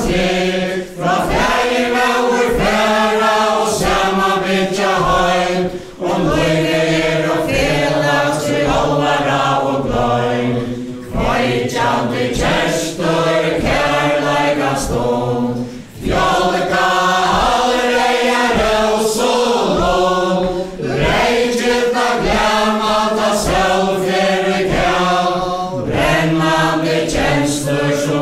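A group of men and women singing a Faroese song in unison, line by line with short breaths between phrases, over a regular low beat of the dancers' feet.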